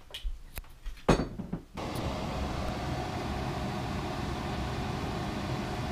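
A few light clinks and a louder knock, then a steady fan whir from an air fryer that starts abruptly about two seconds in and keeps running.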